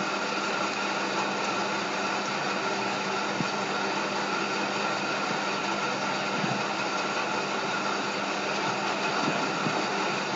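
A steady machine hum with a hiss and a few steady tones, unchanging throughout.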